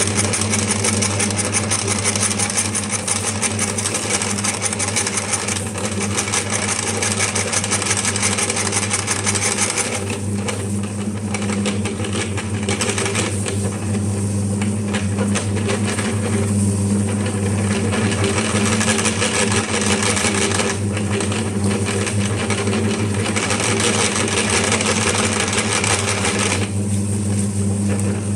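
Meat grinder machine running, its motor humming steadily while it grinds wafers with a rough crunching. The crunching thins out for a few seconds several times while the hum carries on.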